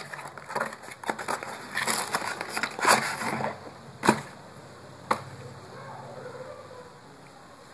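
Cardboard perfume box handled and opened, its flaps and packing rustling and scraping for about three and a half seconds, followed by two sharp clicks about a second apart.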